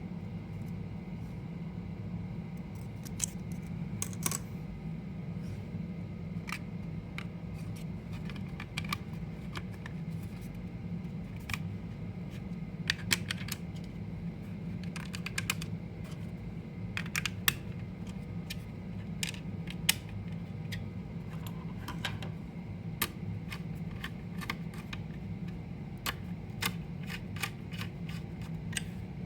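Irregular small clicks and taps of hands handling a mini PC's case, parts and RAM modules, over a steady low hum.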